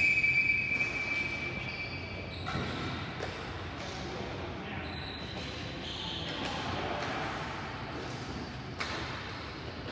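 Ball hockey play on an indoor rink: a loud, steady high-pitched tone opens and lasts about two and a half seconds, then shoe squeaks and sharp knocks of sticks and ball follow over the hall's background noise.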